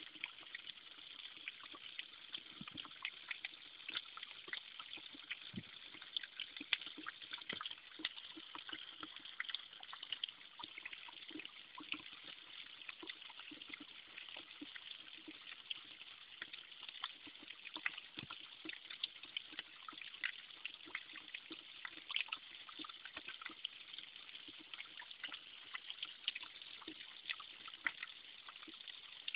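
Thin stream of spring water falling from an opening in a mossy stone wall and trickling onto rocks, with a steady patter of small splashes and drips.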